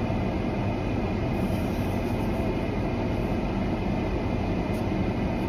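Steady rumble and hiss of a vehicle running, heard inside its cabin.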